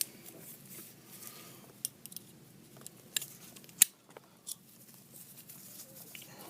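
Faint, scattered metallic clicks and ticks of small steel parts of a 1911 pistol slide being handled and pried as the stubborn extractor is worked loose. The sharpest click comes a little before the middle.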